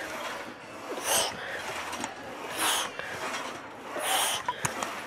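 A man breathing hard and forcefully through each rep of a heavy Smith machine squat: three sharp, hissing breaths about a second and a half apart, with a few light clicks near the end.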